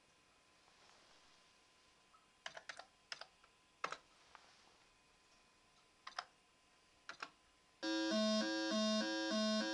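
A few keys clicked on a computer keyboard in small groups, then, near the end, two-voice square-wave computer music begins: the KC85/4 home computer playing a BASIC-programmed tune through its Z80 PIO, with buzzy notes stepping in a quick repeating pattern.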